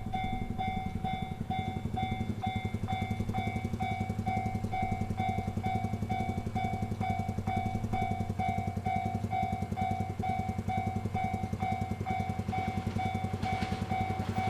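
Japanese railway level-crossing warning bell ringing steadily, one electronic ding repeating just under twice a second, which signals that a train is approaching. A low rumble runs underneath, and near the end the noise of the oncoming train rises.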